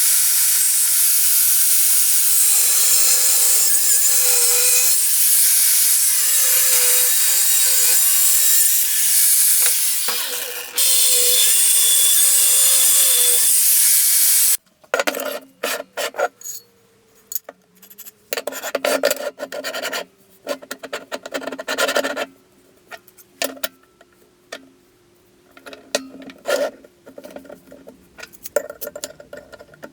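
Power grinder running steadily for about fifteen seconds, its pitch dipping and recovering as it is pressed into the work, then stopping suddenly. It is followed by a series of short, irregular scraping strokes.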